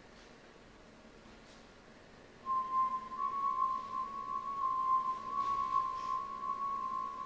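Quiet stage room tone, then about two and a half seconds in a steady, high, whistle-like tone comes in and holds one pitch, stepping up slightly just after it starts: a sustained tone in the dance piece's music.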